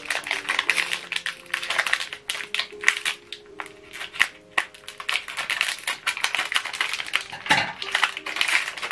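Plastic wrapper of a new HP 305 ink cartridge crinkling and crackling as it is peeled off by hand, in quick irregular crackles.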